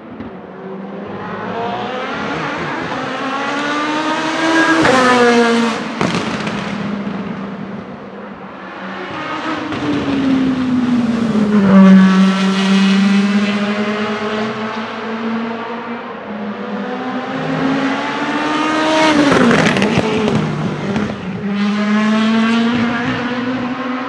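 Rebellion R-13 LMP1 prototype's Gibson GL-458 4.5-litre V8 at full throttle, accelerating through the gears as the car passes by. The engine pitch climbs and drops sharply at each upshift, with the loudest moment a close pass about twelve seconds in.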